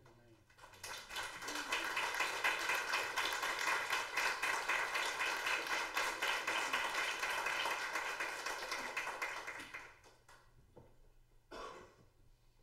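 Audience applauding, swelling within the first second and dying away about ten seconds in, followed by a few scattered knocks.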